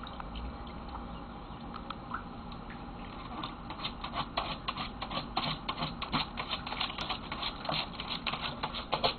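A Papillon's paws digging and splashing in shallow water on the floor of a plastic wading pool: quick pattering strokes, about four a second, starting about three seconds in.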